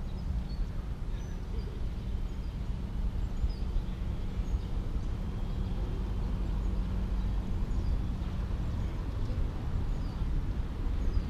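Wind buffeting the microphone as a steady, fluctuating low rumble, with faint scattered bird chirps.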